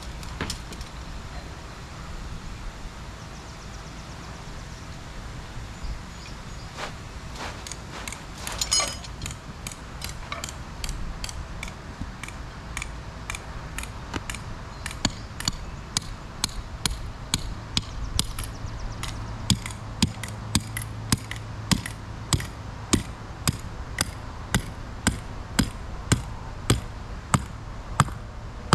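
Hammer blows driving a tie-down stake into the ground: an even run of sharp strikes, about one and a half a second, starting about halfway through and growing louder near the end. Under them runs the steady low hum of the inflatable slide's blower.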